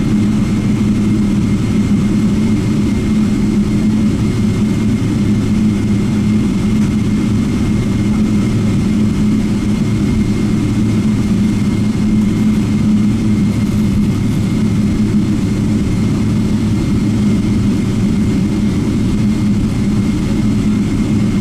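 Cabin noise of a Boeing 777-300ER taxiing, heard from inside the passenger cabin: the GE90 turbofan engines at low taxi thrust give a steady, even low drone, with a faint thin high tone held above it.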